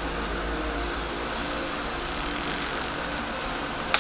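A steady hum with faint steady tones, then near the end a sudden loud crackling rasp as protective plastic film starts being peeled off a PC case panel.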